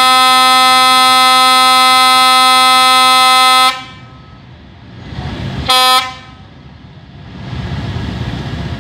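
Vietnamese railway locomotive air horn: one long, loud, steady blast that cuts off sharply just under four seconds in. A quieter rumble follows, then a short toot of the same horn about two seconds later, and the rumble again.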